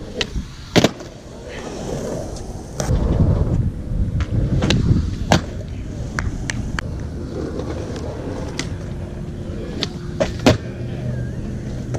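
Skateboards rolling on concrete with a steady wheel rumble, cut by several sharp board clacks from pops and landings, the loudest about ten and a half seconds in.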